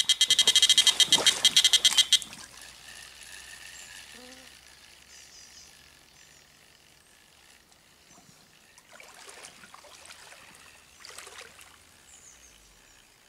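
Electronic carp bite alarm on the rod pod bleeping rapidly for about two seconds, the sign of a fish running with the bait. Then faint splashing of someone wading in shallow water.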